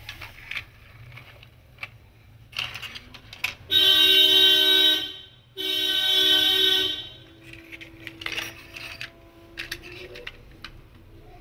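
Two long horn-like toots, each about a second and a half with a short break between, amid light knocks and clicks of plastic toy vehicles being moved on a concrete floor.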